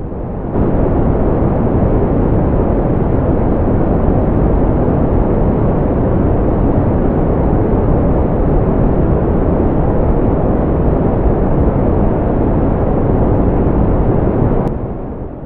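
Wind buffeting the microphone of a camera mounted outside a moving pickup truck, mixed with the truck's road noise: a loud, steady, heavy rush. It fades in at the start and fades out near the end.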